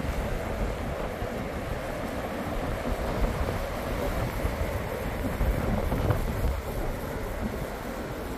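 Strong wind buffeting the microphone with a gusty low rumble, over the steady wash of surf breaking on a sandy beach.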